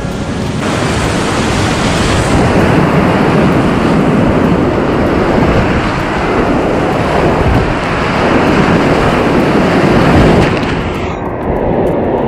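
Whitewater rapids rushing loudly around a kayak as it runs through them, a steady wash of water noise that turns duller near the end.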